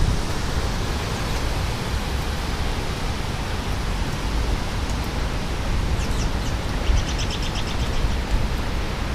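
Steady rushing noise of severe thunderstorm wind and rain. A short run of high, rapid chirps comes near the end.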